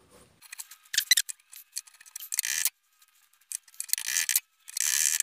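A rolled sheet-steel exhaust cone being worked on a steel bar held in a vise: a few sharp metallic taps about a second in, then short rasping scrapes of steel on steel. The cone is being tapped with a small hammer to true it round.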